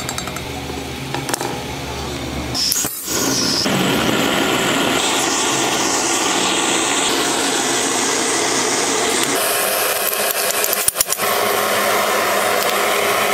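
Steady workshop machine and gas-burner noise, with the sound changing abruptly about three seconds and again about nine seconds in, and a brief dropout near eleven seconds.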